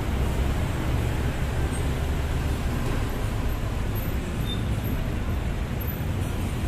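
Steady street traffic noise: a low, even rumble of passing road vehicles with no distinct events.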